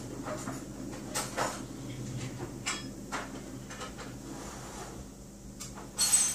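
A dog's paws and claws knocking and scraping against a door and wooden decking as it jumps up: scattered sharp knocks, with the loudest clatter near the end.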